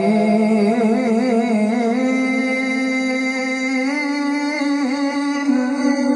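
A man's voice reciting the Quran in melodic tilawah style through a PA system. It winds through an ornamented run in the first two seconds, then holds one long, steady note that breaks off about six seconds in.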